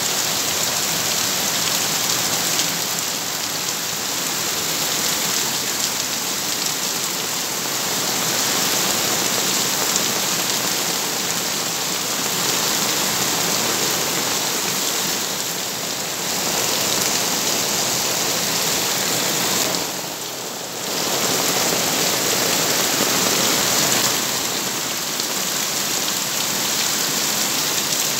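Heavy rain pouring down on a yard and carport roof, a loud, steady hiss, with runoff sheeting off the roof edge. It eases briefly for about a second around twenty seconds in.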